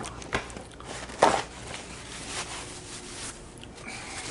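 Two short sharp knocks, a small one about a third of a second in and a louder one just over a second in, over light rustling and a faint steady hum.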